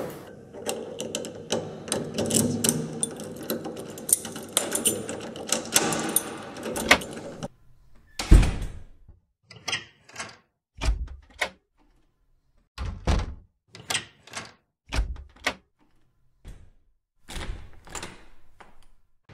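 Dense clattering and rumbling for the first seven seconds or so, then a string of separate heavy thuds and knocks every second or two, the loudest about eight seconds in: a door being handled and knocked against in a hallway.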